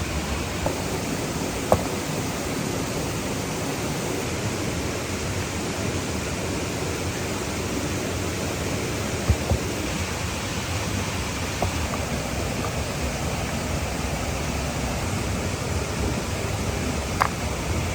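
Waterfall rushing steadily, with a few short, sharp knocks scattered through it.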